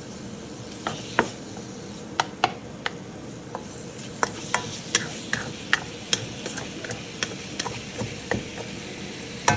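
Bacon pieces sizzling in a wok, with irregular sharp knocks and scrapes of a wooden spatula on the wok as the bacon is stirred. The knocks start about a second in and come more often in the second half.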